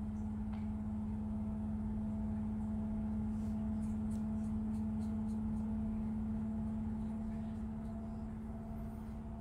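A steady low hum that does not change, with a few faint light ticks about halfway through.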